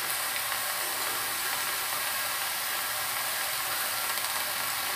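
Mixed vegetables and bottle gourd greens frying in hot oil in an iron kadai, making a steady sizzling hiss.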